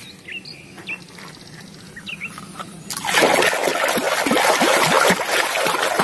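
Hands sloshing and scrubbing a plastic toy car in a basin of muddy water, with dense splashing that starts about three seconds in and goes on to the end.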